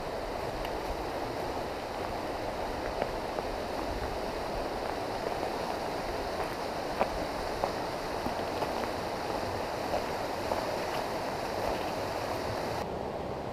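Gray Wolf River flowing steadily: a constant rush of moving water with a few faint ticks. The higher hiss drops away suddenly shortly before the end.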